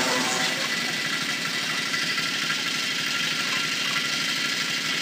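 Small engine on a well-drilling rig running steadily at an even speed.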